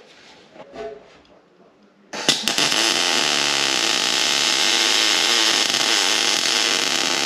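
Kemppi Minarc Evo 170 MIG welder arc crackling steadily while plug-welding steel chassis plate. The arc strikes suddenly about two seconds in, after a few faint handling knocks.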